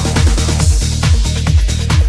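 Electronic dance music, trance-like, with a steady kick drum at about two beats a second.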